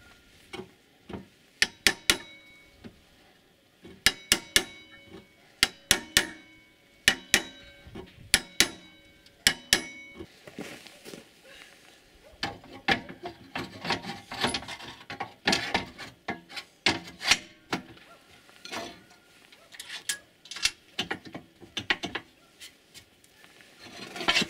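Clusters of sharp metallic clinks and knocks, each ringing briefly, then about ten seconds in a stretch of scraping and rubbing with scattered knocks, like wood and metal parts being handled and set up at a saw bench; the circular saw itself is not running.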